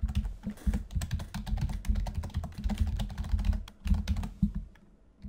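Rapid typing on a computer keyboard, a dense run of keystrokes that stops shortly before the end.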